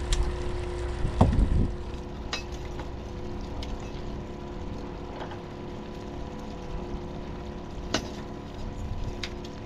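Boat's outboard motor running steadily, a constant hum, with a few sharp clicks and a heavier knock about a second in from gear being handled on the boat.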